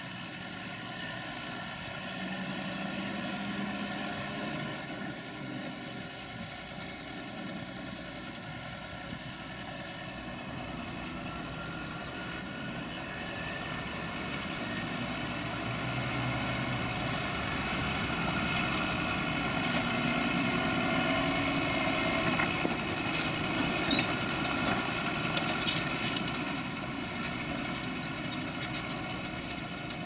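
John Deere tractor's diesel engine pulling a reversible plough through the ground: a steady engine drone that grows louder through the middle as the tractor comes closer. A few sharp clicks come late on.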